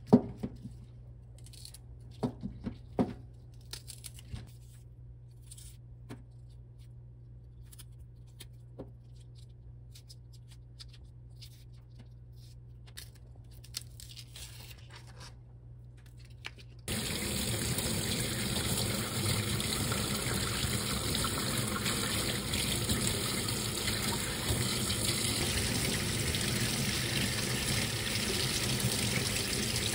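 Faint clicks and rustles of green garlic stalks being trimmed and peeled over a stainless steel sink. A little over halfway through, a tap starts running steadily into the sink as the stalks are rinsed under the stream.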